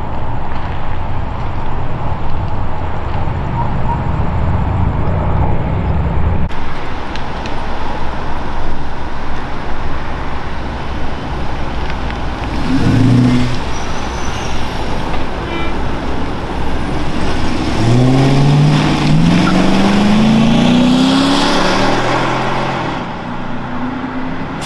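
Police motorcycles and patrol cars passing with steady engine and tyre noise, with a brief low tone about halfway. Near the end a Dodge Charger police cruiser's engine climbs in pitch as it accelerates away.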